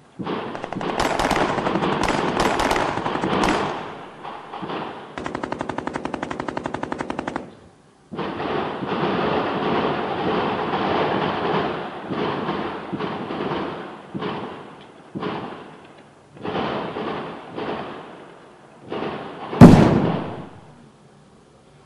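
Dubbed-in automatic gunfire sound effects: long bursts of rapid fire, one very even fast burst a few seconds in, then shorter bursts with pauses. About twenty seconds in a single loud blast with a low rumble stands out, the loudest sound.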